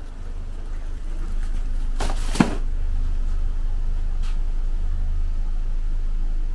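A steady low rumble, with a brief rustle about two seconds in.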